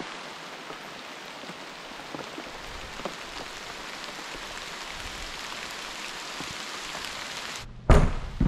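A steady, even hiss with a few faint ticks. Near the end it cuts out abruptly and two loud thumps follow.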